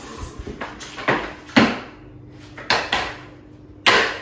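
Wooden base of a Mont Marte tilting studio easel, with its four casters attached, being turned over and set down on a timber floor: a series of knocks and bumps, the loudest about a second and a half in and another just before the end.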